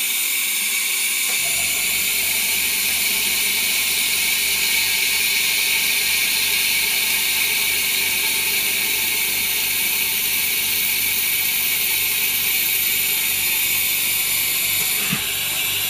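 Air compressor running, giving a steady hiss under the laminating machine's air supply. A low, rhythmic pulsing joins about a second and a half in.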